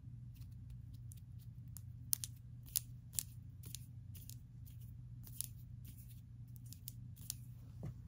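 Long acrylic fingernails clicking and snipping against each other as the hands pluck and flick in the air. The clicks are crisp, high-pitched and irregular, about fifteen of them, with the loudest around two and three seconds in. A steady low hum sits under them.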